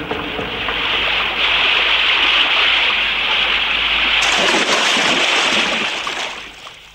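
Fast river water rushing, a steady loud rush that swells about a second in, turns brighter about four seconds in, then fades near the end.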